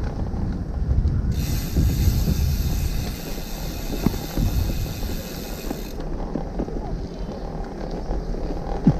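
Wind buffeting the microphone of a camera carried on a moving bicycle, with tyre and road rumble. The sound is an uneven low rumble, with a brighter hiss joining in from about a second in until about six seconds.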